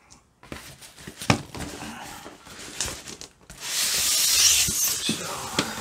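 Cardboard box and polystyrene packing being handled: scattered knocks and rustles, then about three and a half seconds in a loud rubbing hiss lasting a second or so as the polystyrene case slides out of the cardboard box.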